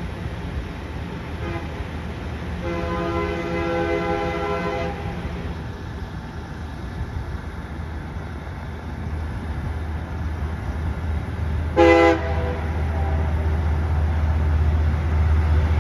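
An approaching passenger train's locomotive air horn sounding a chord: a faint short toot, then a long blast of about two seconds, then a short sharp blast near the end. Under it a low rumble from the oncoming locomotive grows steadily louder.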